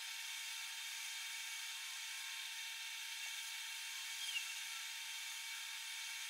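Steady hiss from a large pot of curry boiling on a gas stove, with one brief faint squeak about four seconds in.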